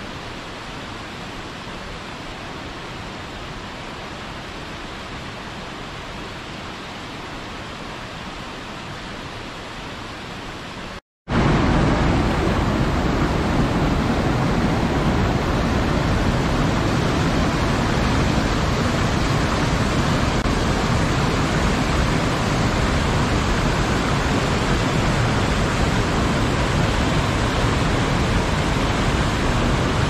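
Waterfall rushing: a steady, even hiss of falling water that cuts out for a moment about eleven seconds in, then comes back louder and deeper.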